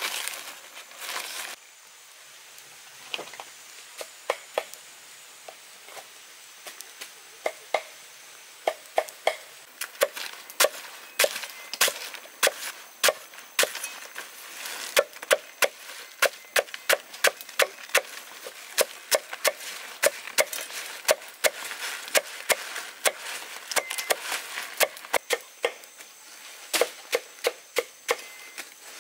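Machete chopping a bundle of taro stems on a wooden log block: a long series of sharp chops, sparse at first, then about two a second from roughly a third of the way in. A plastic sack rustles briefly at the start.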